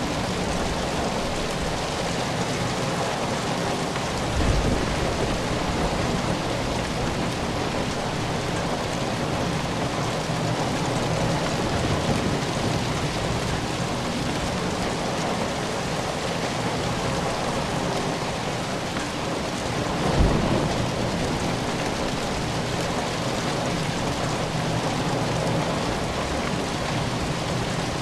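Steady rain falling, with two brief low thumps, one about four and a half seconds in and another about twenty seconds in.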